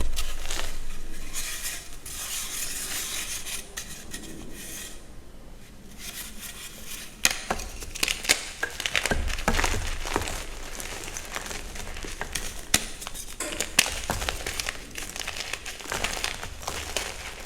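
Reformed gym chalk being crushed, crunching and crumbling with a soft grainy hiss at first, then many sharp, crisp snaps from about halfway through.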